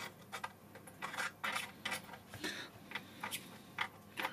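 Faint, irregular small clicks and ticks, a few a second, as a wide soldering-iron tip works along the pins of a PCI-E slot on a motherboard.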